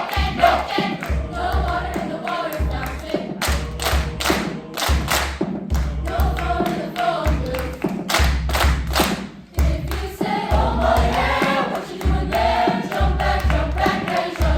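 A choir singing over a regular low thudding beat. Twice the voices give way to hissing sounds, about four seconds in and again about eight seconds in.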